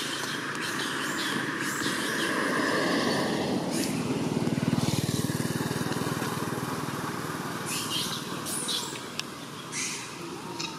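A motor vehicle's engine passing, growing louder to about five seconds in and then fading, with a few short clicks later on.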